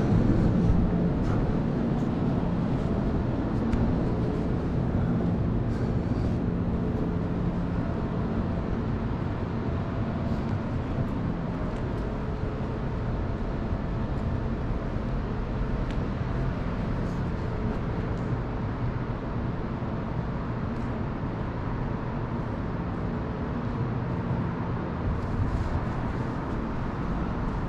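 Steady outdoor rumble of road traffic, with a faint engine hum running through it; loudest in the first second, then even.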